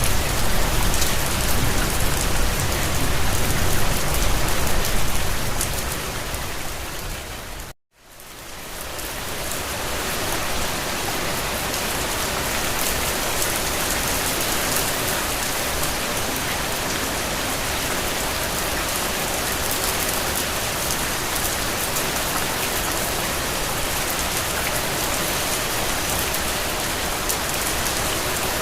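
Steady heavy rain, an even hiss of falling drops. About eight seconds in it fades out to a moment of silence and fades back in, where one rain recording joins the next; the rain before the gap carries more low rumble.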